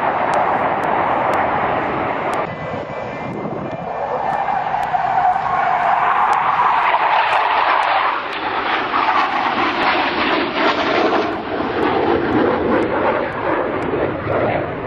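Jet engines of Blue Angels F/A-18 Hornets flying past: a loud, steady roar whose pitch drifts slowly as the jets pass.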